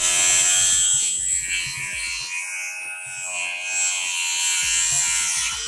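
A power tool cutting through corrugated metal roofing: a steady, harsh, high-pitched buzzing whine.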